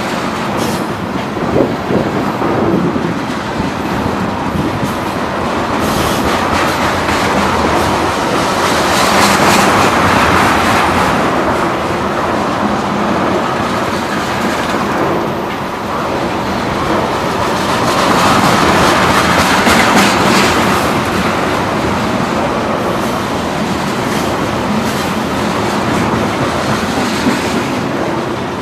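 A train running past at close range, its wheels clacking steadily over the rail joints, the sound swelling twice as it goes by.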